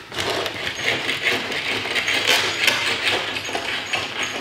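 Spline roller being worked back and forth along a screen door frame, pressing the spline and screen down into the channel. It makes a rapid crackle of small clicks that swells with each stroke.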